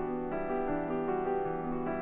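Background music: a piano tune with notes changing every fraction of a second.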